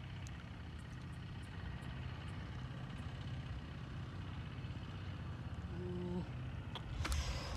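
Hands working in wet mud while digging out a catfish, over a steady low hum; a louder burst of wet squelching and splashing about seven seconds in.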